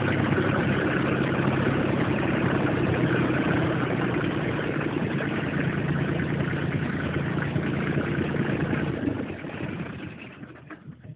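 Caterpillar C1.5 three-cylinder stationary diesel engine idling steadily, then dying away near the end.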